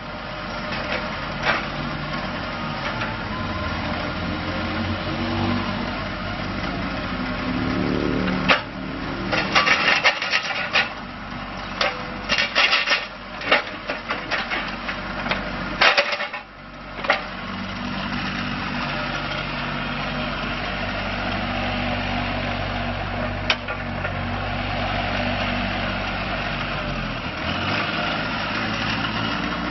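John Deere 27D mini excavator's diesel engine running, its pitch rising and falling as it is worked. A run of sharp metallic clanks and knocks comes through the middle stretch, then the engine runs steady again.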